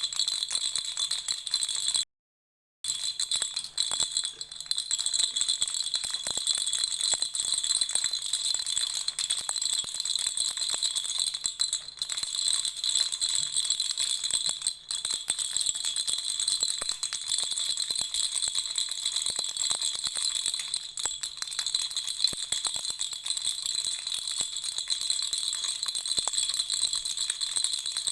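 Lollipop-shaped baby rattle shaken without pause, a dense, bright jingling rattle. It cuts out completely for under a second about two seconds in.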